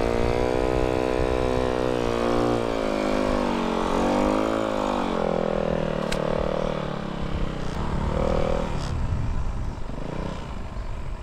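Snow bike engine revving up and down in pitch as it rides, then dropping away about nine seconds in, over a low rumble.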